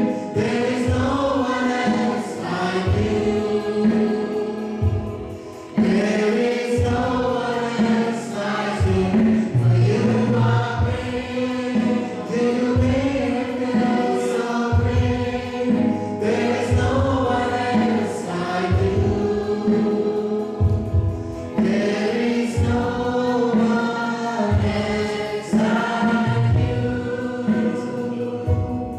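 A group singing a gospel worship song with instrumental accompaniment, with a bass line moving under the voices.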